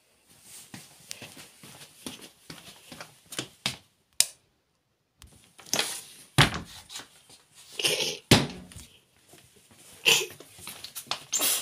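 Irregular knocks, clicks and thumps from footsteps on a wooden parquet floor and from a handheld phone being moved about, with a few louder thumps in the second half.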